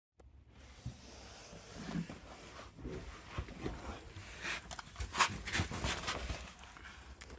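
Irregular knocks, clicks and rustling handling noises, loudest around the middle.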